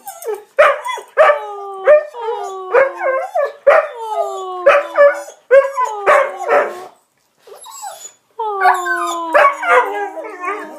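Dog howling and whining in long, slowly falling cries, broken by short sharp barks: a frustrated tantrum over his bone stuck under the sofa. The cries stop for about a second a little past halfway, then start again.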